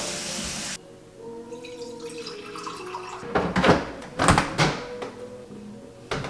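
Kitchen handling sounds: a steady hiss cuts off abruptly under a second in, then a refrigerator door is pulled open and pushed shut with a few short swishes and knocks, and a sharp click comes at the very end.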